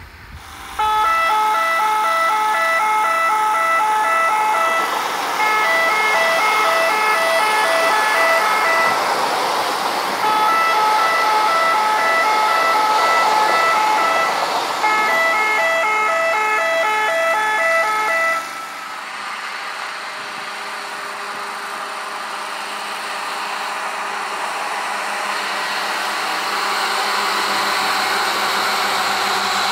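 Automatic track warning system (ATWS, Rottenwarnanlage) horns sounding a loud multi-tone warning signal, a held tone mixed with tones beeping about twice a second, warning track workers of an approaching train. The signal stops about 18 seconds in, leaving a rushing noise of rail traffic or track machinery that grows toward the end.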